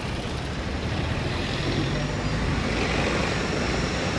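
Steady low rumble of a motor vehicle with road noise.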